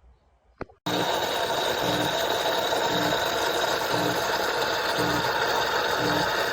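Two small clicks, then an electric coffee appliance switches on abruptly and runs with a loud, steady whirring and a low pulse about once a second.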